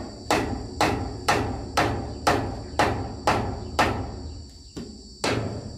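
A hammer striking a wooden plank wall, about two sharp blows a second, with a short pause near the end before the blows resume. A steady high insect drone runs underneath.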